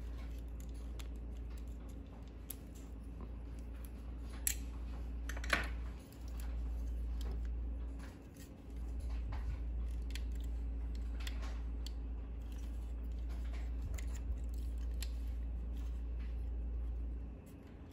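Scattered small clicks and taps of a transforming robot action figure's parts and joints being handled and moved, with two sharper clicks about four and a half and five and a half seconds in, over a steady low hum.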